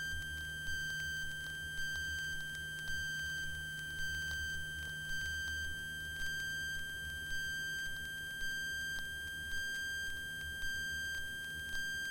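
A steady, high electronic tone, like an electrical whine on the aircraft's intercom audio, with a faint tick about once a second over a low engine rumble.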